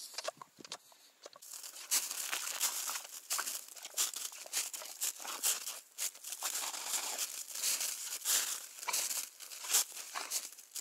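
Snow crunching under a dog's paws as it digs and paws at the snow. The crunches come thick and irregular from about a second and a half in.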